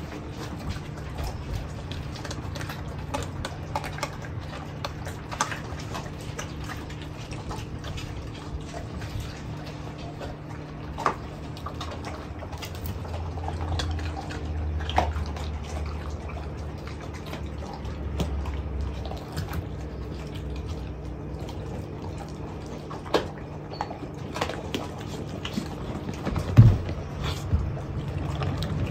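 Mastiff puppy licking and chewing raw chicken: scattered wet smacks and clicks over a steady low hum, with one sharper knock near the end.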